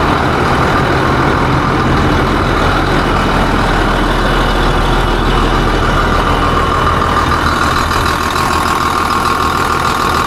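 Diesel tractor engine running steadily just after a fuel filter change, checked for fuel leaks. A whine gets stronger about two-thirds of the way in.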